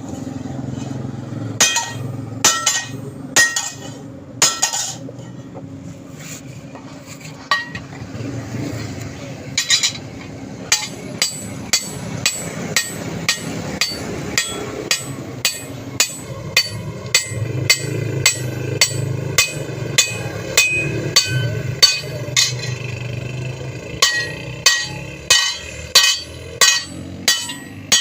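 Hand hammer striking steel on an anvil: a few separate blows at first, then steady hammering at about one and a half blows a second, the metal ringing after each strike, as a toka fodder-cutter blade is forged.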